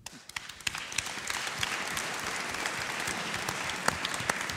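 Audience applauding, starting suddenly with many close-packed claps and holding steady.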